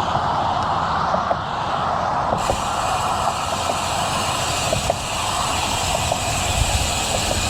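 Steady wind rush over a GoPro microphone mixed with road and tyre noise from a road bike riding along a road, with a few faint scattered ticks.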